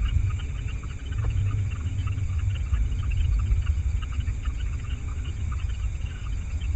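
A dense chorus of night creatures chirping, over a steady low rumble.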